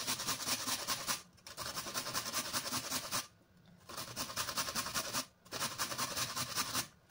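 A carrot being grated on a stainless-steel box grater: quick rasping strokes, about five a second, in runs broken by three short pauses.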